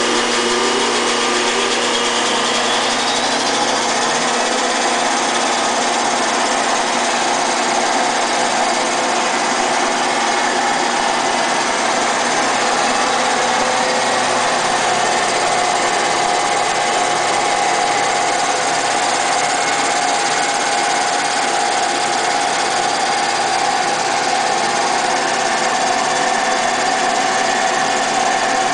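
A 24-inch Kindt-Collins Master disc sander, Model C, running steadily: a continuous mechanical whir of its electric motor and V-belt drive with a steady hum, and a faint whine that rises in pitch during the first few seconds.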